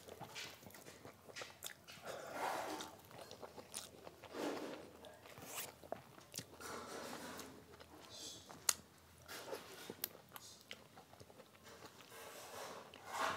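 Close-up eating sounds of rice and stuffed eggplant curry eaten by hand: chewing and wet mouth clicks and smacks, with fingers squishing rice into the gravy. One sharp click about nine seconds in is the loudest sound.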